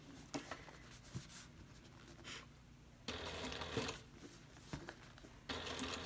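Juki straight-stitch sewing machine stitching through vinyl in two short runs, one about three seconds in and another near the end, with a few faint clicks before the first.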